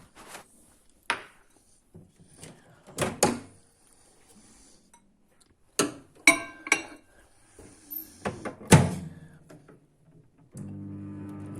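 Kitchen utensils and containers knocking and clattering, a few separate knocks with the loudest near the end. About a second before the end a microwave oven starts running with a steady hum.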